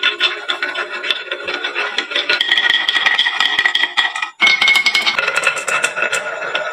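Many marbles clattering down a wooden marble run: a dense stream of clicks with ringing tones over it. It breaks off briefly about four seconds in, then resumes.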